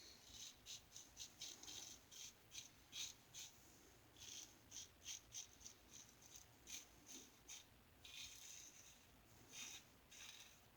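Short, scratchy strokes of a single-edge New Gem safety razor cutting through lathered stubble, about two or three strokes a second in runs with brief pauses. The Gem blade is one the shaver thinks is getting dull and due for changing.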